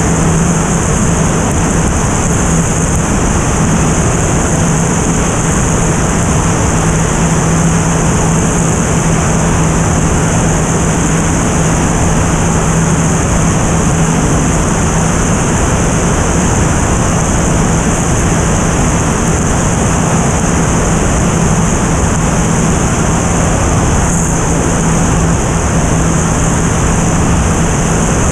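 Single-engine propeller airplane in steady cruise heard from a camera on its tail: loud, unbroken wind rush from the slipstream over the microphone, with the steady hum of the engine and four-bladed propeller underneath.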